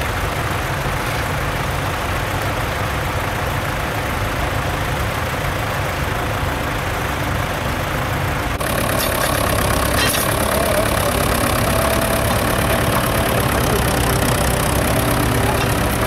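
Tractor engine running steadily at a low rumble. About halfway through the sound changes abruptly to a slightly louder engine with a faint whine on top.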